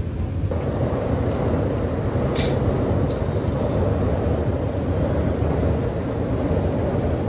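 City street ambience at night: a steady rumble of passing traffic, with a short high hiss about two and a half seconds in.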